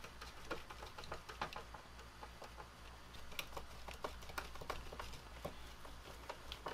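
Faint, irregular small clicks and scrapes of a hand screwdriver turning screws that mount a circuit board on its standoffs.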